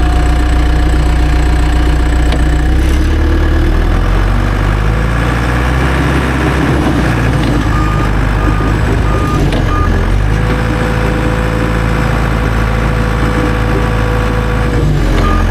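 John Deere crawler dozer's diesel engine running as the machine is driven, its engine note shifting a few seconds in. Its backup alarm beeps briefly about halfway through, and a steady whine is heard through the latter part.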